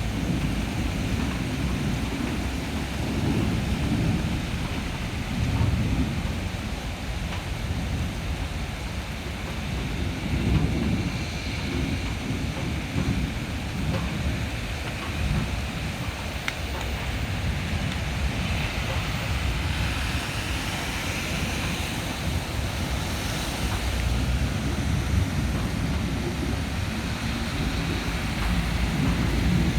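Thunderstorm with heavy rain hissing steadily, under low rumbling of thunder and wind that swells and fades again and again.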